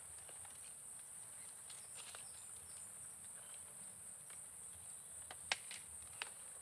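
Steady high-pitched drone of insects, with scattered light clicks and snaps of ripe robusta coffee cherries being picked by hand among the leaves; two sharper clicks near the end are the loudest sounds.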